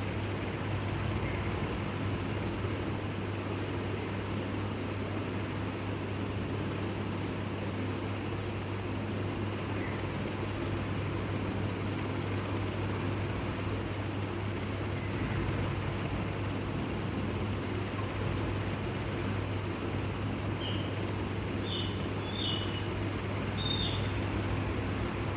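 Steady low rumble and hiss with a constant hum, like distant traffic or an engine, and a bird giving four short, sharp, high calls near the end.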